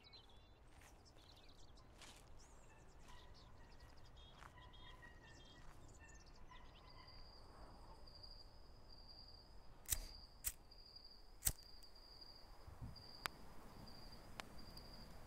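Faint night-time woodland ambience: a few faint bird chirps early on, then a steady, high, pulsing tone from about seven seconds in. A few sharp clicks come around ten to eleven seconds in, with one more near thirteen.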